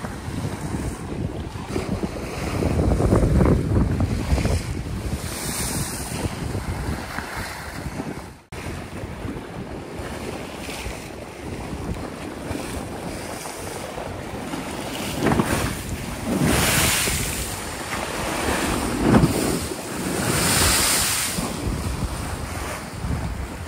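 Choppy, wind-driven lake waves splashing and washing around a kayak, with wind rumbling on the microphone. Louder washes of spray come a few times in the second half, and the sound drops out briefly about a third of the way in.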